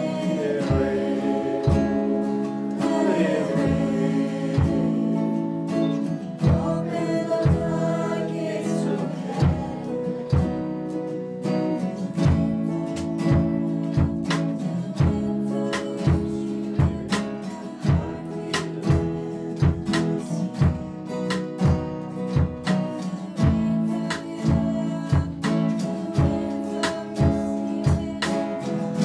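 Live worship band playing: a girl singing lead over strummed acoustic guitar and electric guitar, with a drum kit keeping a steady beat that comes in strongly about six seconds in.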